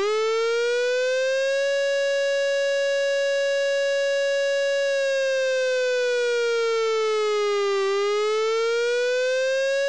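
South Korean civil defence air-raid warning siren: one wavering tone with many overtones. It rises quickly at the start, holds steady for about three seconds, sinks slowly, then climbs again near the end, the wavering signal that marks an air-raid warning.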